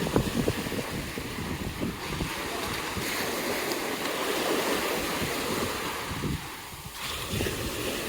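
Sea surf washing onto the beach, swelling louder a few seconds in and easing off near the end, with wind buffeting the microphone.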